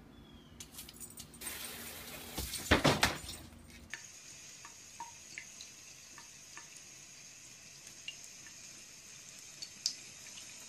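A few loud knocks about two to three seconds in. Then, from about four seconds in, a bathroom faucet runs a thin stream of water into a sink: a steady faint hiss with small drips and ticks.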